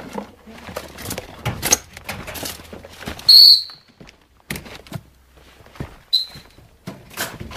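A short, loud, high-pitched whistle-like tone about three seconds in, and a much briefer one near six seconds, over scattered knocks and scrapes of rubble and debris being stepped on.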